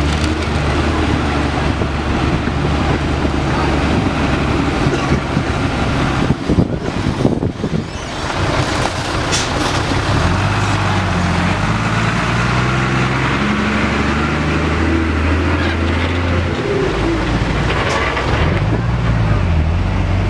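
Heavy diesel trucks, a Mitsubishi and a Hino FM260TI, running at low speed as they crawl past one after another, their engine note rising and falling. About six to eight seconds in comes a louder rushing burst of noise.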